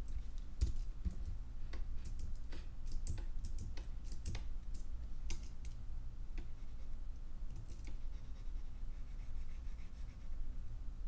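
Irregular clicks and taps of computer keys, coming thickly for the first few seconds and then more sparsely, over a low steady hum.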